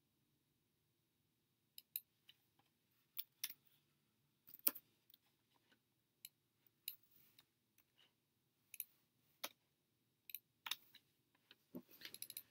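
Computer keyboard and mouse clicks during code editing: single, sparse clicks about a second or so apart, with a quick run of clicks near the end.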